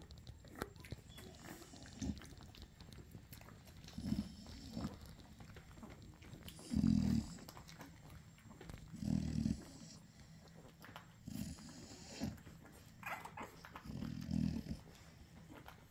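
Nano American bully puppies nursing from their mother: a low, rough breathing sound comes about every two seconds, with faint wet suckling clicks between. A short high squeak comes near the end.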